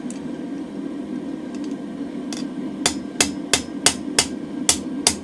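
Very light blacksmith's hammer striking a hot 6 mm mild-steel bar on the anvil to straighten it: about eight quick, ringing blows at roughly three a second, starting a little over two seconds in, over a steady low hum.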